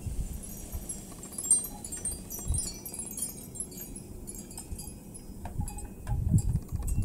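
Light, high-pitched tinkling of a wind chime, with scattered short ringing notes throughout and a few low thumps, the strongest near the end.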